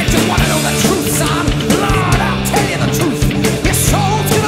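Loud heavy metal music with electric guitar, drums and singing.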